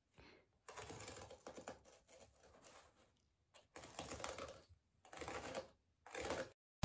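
Utility knife scoring and cutting through a carpet tile along a straight line: a series of faint, short scratchy strokes with brief pauses between them.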